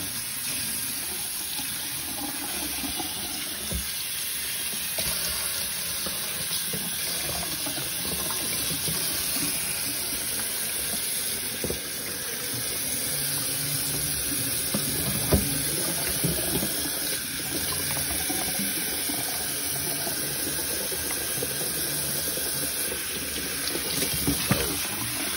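Kitchen tap running steadily into a stainless steel sink while raw chicken wings are rinsed in a bowl, with a few sharp knocks, the loudest about fifteen seconds in.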